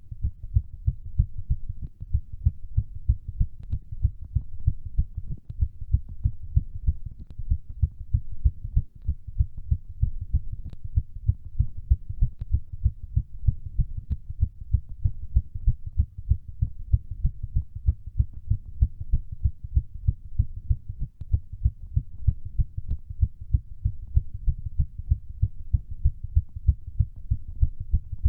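Human heartbeat racing during exercise: a fast, even run of low thumps, several beats a second.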